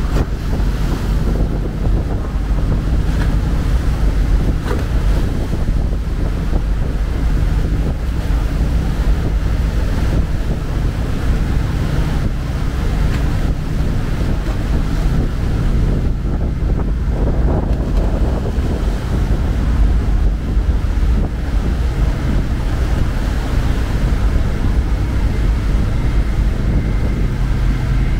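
Ferry's diesel engines running steadily with a low drone, with wind buffeting the microphone.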